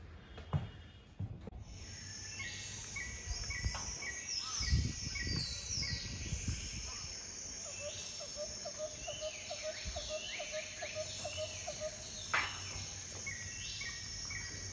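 Wild birds chirping and calling: short repeated chirps, quick falling whistles and a fast trill, over a steady high-pitched tone. A low rumble about five seconds in.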